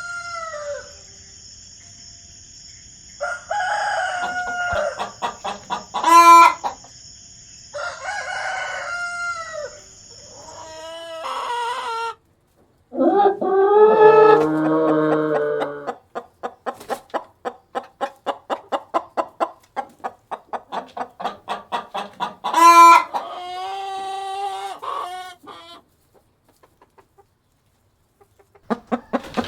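Chickens clucking and roosters crowing in a string of calls, with a long run of rapid, evenly spaced clucks in the middle and loud short calls twice.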